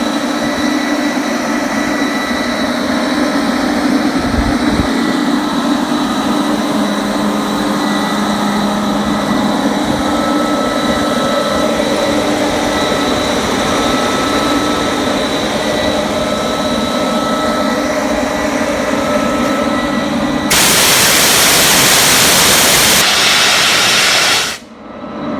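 Quincy 40 hp rotary screw air compressor with its Marathon Electric motor running steadily, with a constant hum and whine. Near the end, a loud hiss of rushing air comes in for about four seconds and then cuts off sharply.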